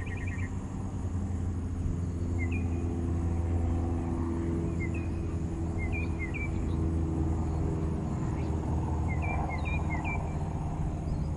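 Low steady mechanical rumble that swells and eases slightly, with small birds chirping briefly in short groups several times.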